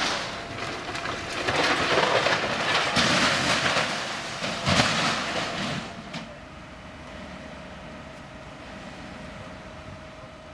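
Loud clattering, rushing noise of firefighting work on a fire-damaged roof, with knocks and rattles. At about six seconds it gives way to a quieter steady hum with a faint even whine, typical of a fire engine running at the scene.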